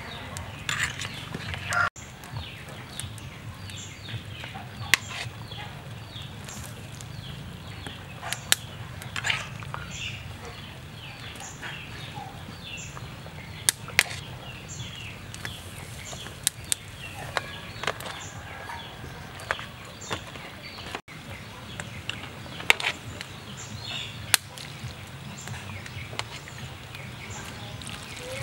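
Serving utensils tapping and clinking against a bowl as food is placed in it, in scattered sharp clicks a few seconds apart, over a low steady hum and birds chirping in the background.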